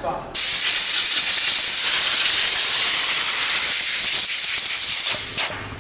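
Compressed-air blow gun blasting out a tailgate latch mechanism with a loud, steady hiss. It starts about a third of a second in and stops near the end after one short last burst. The air carries water, which the mechanics take as a sign that the line's water separator needs servicing.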